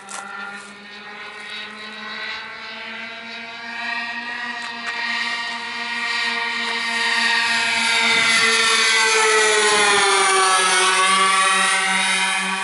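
Four OS 65AX model-airplane engines on a Hobby Barn C-5 RC model buzzing in flight as the plane approaches, growing steadily louder, then dropping in pitch as it passes by about ten seconds in.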